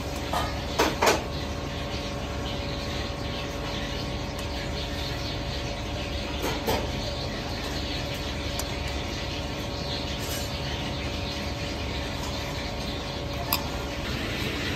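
Restaurant kitchen ambience: a steady drone of ventilation or kitchen machinery with a faint hum, and a few light clinks of dishes, two close together about a second in, another around six and a half seconds and one near the end.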